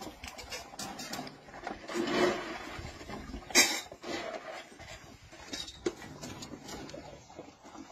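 Dry dog kibble being scooped out of a plastic bucket with a small bowl and rattled into feeding bowls: scraping and clattering, with a louder rustling patch about two seconds in and one short, loud rattle about three and a half seconds in.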